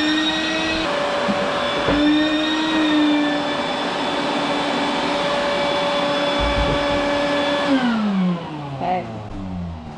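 Vacuum cleaner running with a loud, steady motor whine, then switched off near the end, its pitch falling as the motor spins down.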